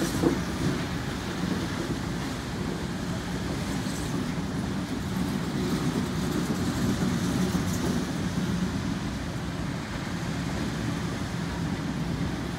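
A long lash-up of CN freight diesel locomotives passing, a steady low rumble of their engines and rolling wheels.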